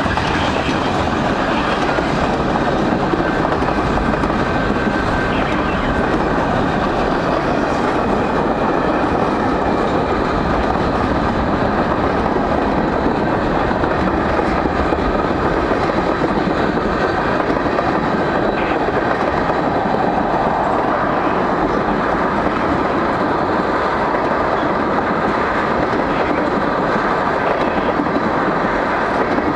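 Freight cars of a long mixed freight train rolling past: a steady rumble with the clatter of wheels over rail joints.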